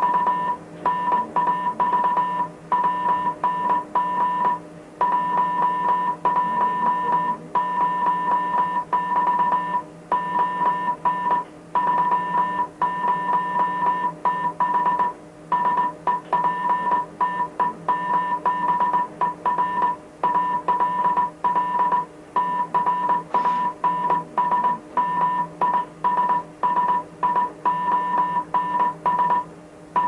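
Morse code sent on a telegraph key, heard as a single high beep switched on and off in quick dots and dashes, with short pauses between letters and words. A steady low hum runs underneath.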